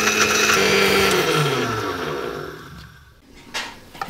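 Electric mixer grinder grinding biscuits to powder in its small steel jar. It is switched off about half a second in, and its motor winds down with a falling pitch over about two seconds. A few light clinks follow near the end.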